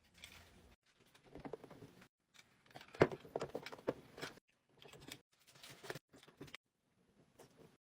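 Small fidget toys being handled and set into a drawer organizer: irregular light clicks and taps in short clusters, loudest about three seconds in.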